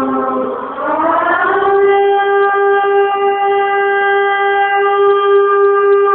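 Air-raid siren wailing: its tone sinks low just after the start, climbs over about a second, then holds steady at the top.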